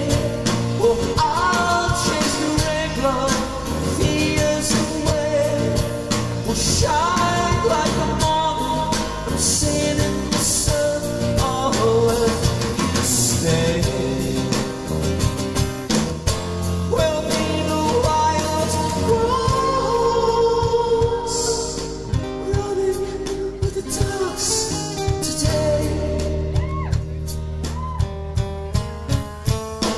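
Live rock band: a male lead singer sings over guitars, bass and drums.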